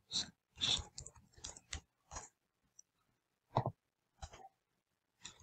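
Intermittent typing on a computer keyboard: short clusters of key clicks with pauses of up to about a second between them.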